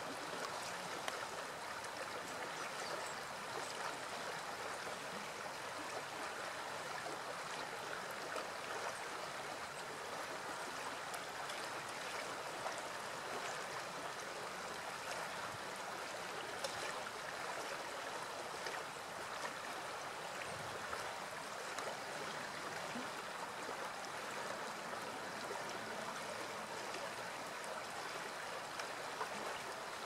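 Shallow stream flowing over stones, a steady rush of running water.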